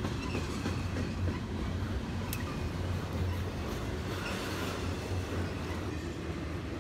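Intermodal freight train's double-stack container cars and trailer cars rolling past: a steady low rumble of steel wheels on rail, with one brief sharp click about two seconds in.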